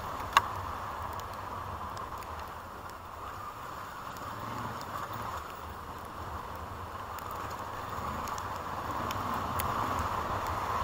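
Vehicle driving over a rough gravel road: a steady rumble and road noise, with scattered small clicks of stones and one sharp knock about half a second in.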